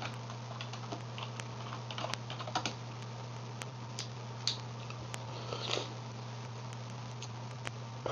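Computer keyboard being typed on in short runs of key clicks as a username and password are entered, over a steady low hum.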